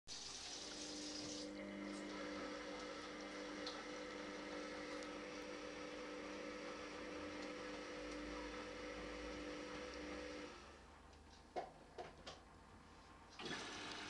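Front-loading washing machine mid-wash: water and laundry sloshing in the turning drum over a steady motor hum. About ten seconds in the drum stops, a few light knocks sound, and the sloshing starts again near the end.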